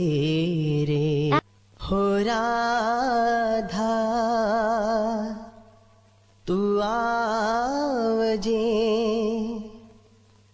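Solo voice singing a slow, mournful-sounding song, holding long notes with a wavering vibrato, in phrases of a few seconds separated by short pauses.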